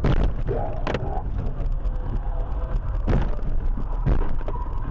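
Highway car crash heard from inside the dashcam car: over the steady road rumble, several loud bangs of impact as the car hits the vehicles ahead and its hood crumples.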